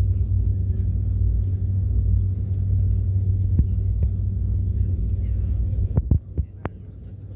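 Steady low rumble of a jet airliner cabin as the aircraft taxis. A few sharp knocks come about six seconds in, and the rumble then drops off much quieter.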